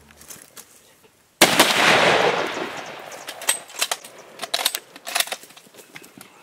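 A single big-bore rifle shot about a second and a half in, its report echoing and dying away over about two seconds, followed by a series of sharp clicks and knocks.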